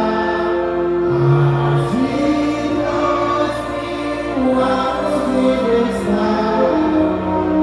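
Worship song: a group of voices singing together over music, holding long notes that change pitch every second or so.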